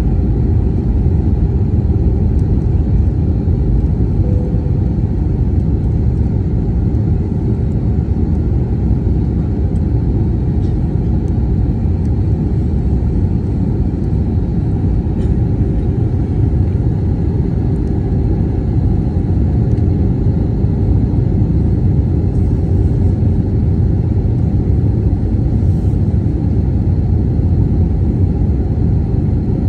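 Steady low rumble of engine and airflow noise inside the cabin of an Airbus A321neo airliner on its descent to land.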